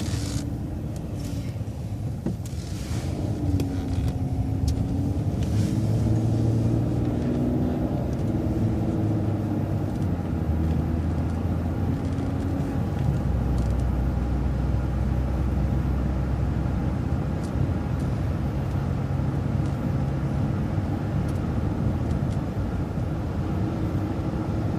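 City transit bus engine pulling away from a stop, its pitch climbing and stepping through gear changes over the first several seconds, then running steadily with a low rumble, heard from inside the bus.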